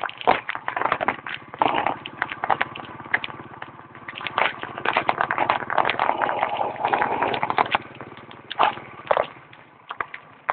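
Footsteps on a dirt path and the rustle and knock of a handheld phone camera being carried: a string of irregular clicks and scuffs, thickening into denser rustling about halfway through.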